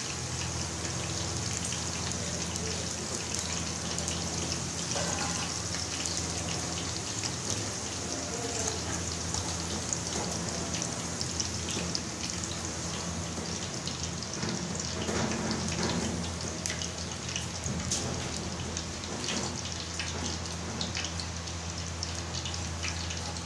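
Potato fries deep-frying in hot oil in a karahi: a steady sizzle with fine, rapid crackling pops. A low steady hum runs underneath.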